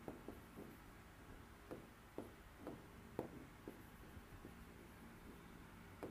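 Faint, irregular taps and light scrapes of a pen tip on an interactive whiteboard screen while a word is handwritten.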